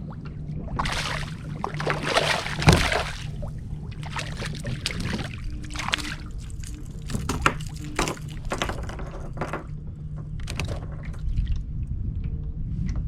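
Water splashing and sloshing close to a kayak, loudest about one to three seconds in, with scattered knocks and clicks over a steady low hum.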